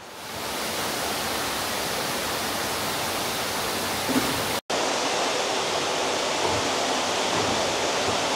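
Steady rush of running water, with a momentary break a little past halfway.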